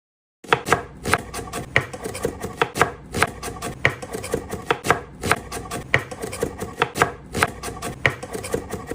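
Knife chopping an onion: quick, irregular strokes of the blade through the onion and onto the board, several a second with some louder hits. It starts about half a second in and stops abruptly at the end.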